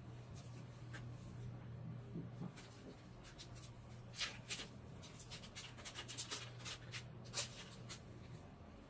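A run of quick scratches and small clicks from gloved hands handling small parts of a metal instrument, busiest in the second half, over a steady low hum.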